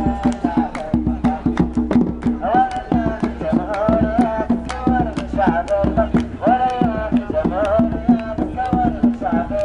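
A group singing a wavering, sliding melody over a fast beat of sharp hand-drum strokes, in the manner of Sahrawi folk song.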